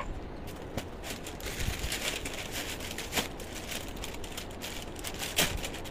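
Soft rustling and handling noise from leggings being picked up and shown, with a few faint clicks.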